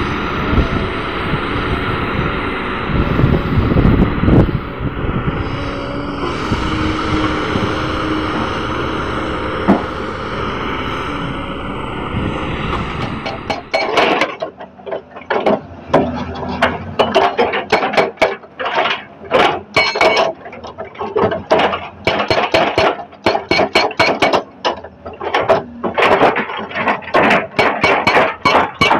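A Kobelco SK200 excavator's diesel engine running steadily under load while it digs. About halfway through, a hydraulic rock breaker on a Hitachi ZX200 excavator starts hammering boulders: rapid, sharp, ringing metal-on-rock blows, several a second.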